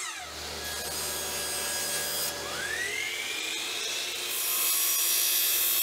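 Sliding compound miter saw: the blade winds down with a falling whine at the start, then the motor starts again a little over two seconds in with a rising whine and the blade cuts through a strip of 1/2-inch Baltic birch plywood during the last second and a half.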